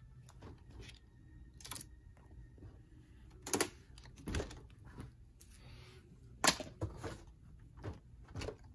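Axial SCX10 III Gladiator RC crawler being handled: picked up, tipped over and set back down, giving a series of irregular knocks and clicks, the sharpest about three and a half and six and a half seconds in.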